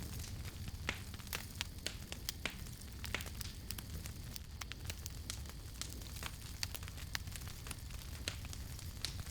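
Wood campfire crackling: irregular sharp pops and snaps, several a second, over a steady low rumble.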